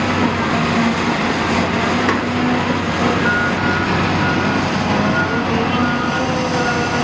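Heavy equipment engine running steadily, powering a hydraulic drive head that screws a helical pipeline anchor into the ground. From a little past three seconds in, a reversing alarm beeps about twice a second.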